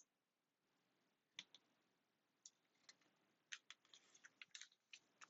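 Plastic LEGO pieces clicking and snapping together as they are handled: a few sharp, light clicks, then a quicker cluster of clicks from about three and a half seconds in.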